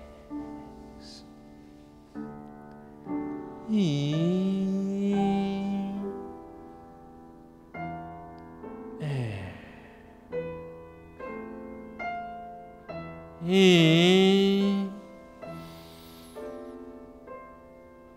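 Calm background music: slow, separate piano notes, with a sliding swooping tone about every five seconds, which in turn dips and rises or falls steeply.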